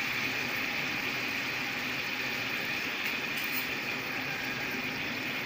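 Raw chicken pieces and ginger-garlic paste sizzling steadily in hot butter and oil in a kadai.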